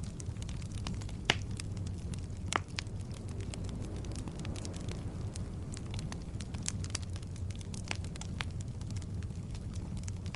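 Logs burning in a fireplace, with a steady low rumble of flame under frequent sharp crackles and pops; the loudest pops come about a second and a half and two and a half seconds in.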